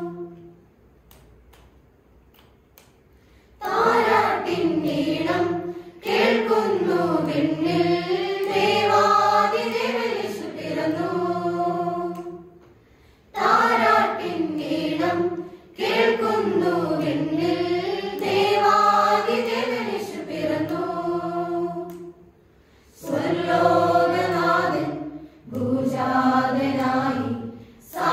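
Mixed church choir of women, girls and men singing a song unaccompanied. The choir is silent for about the first three seconds, then sings in phrases broken by short pauses.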